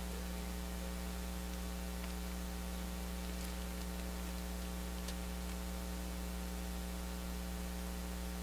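Steady electrical mains hum, a low buzz made of several even tones, with a faint hiss over it.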